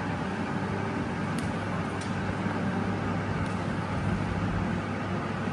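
Steady low hum with an even background rush, like machinery or distant traffic, and a couple of faint short clicks.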